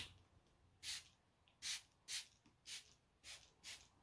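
Trigger spray bottle spritzing disinfectant onto a sneaker: about six short hissing sprays, roughly two a second.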